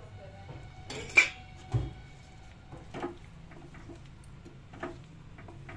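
A spatula stirring a thick curry in a metal kadhai, clanking and knocking against the pan a few times. The sharpest clank, with a short ring, comes about a second in.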